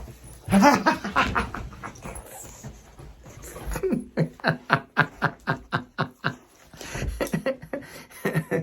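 Pet dog vocalizing in a run of short, rapid sounds, about three a second in the middle stretch, with a person laughing.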